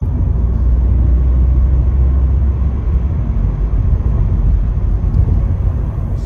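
Steady low rumble of a car driving along a road, heard from inside the cabin: road and engine noise.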